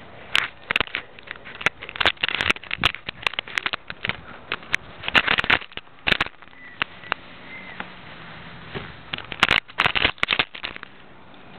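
Irregular clicks, knocks and rubbing of a camera being handled, bumped and moved around, in clusters with short gaps between them.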